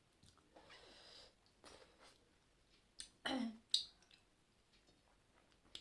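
Close-up eating sounds: small mouth and lip clicks and chewing, with one loud breathy exhale about three seconds in that falls in pitch, followed by a sharp click.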